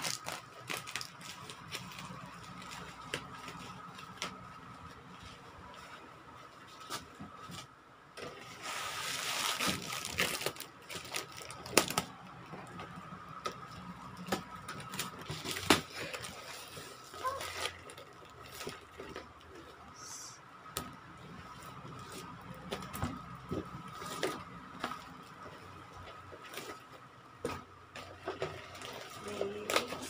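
Plastic bubble wrap crinkling and being cut with scissors, then a cardboard box being handled and torn open, with rustling, sharp snaps and scattered clicks. A louder stretch of crinkling comes about a third of the way in, over a faint steady tone.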